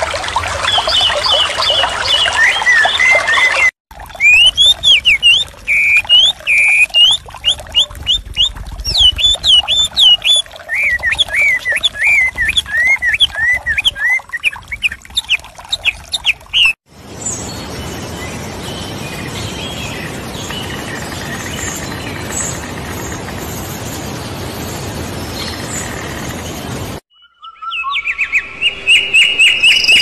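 Small songbirds chirping in quick, repeated rising-and-falling calls, with abrupt cuts. About halfway through, the birds give way to a steady rushing hiss with no calls for about ten seconds, and bird calls return near the end.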